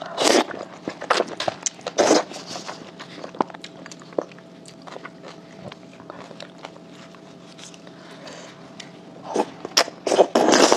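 Close-up wet eating sounds of sauced oysters bitten off bamboo skewers: loud slurps and bites twice near the start and a run of them near the end, with soft mouth clicks and chewing between.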